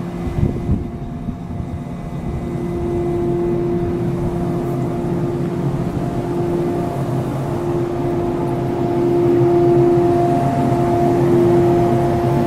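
Train running with a steady humming tone over a low rumble, gradually getting louder as it approaches.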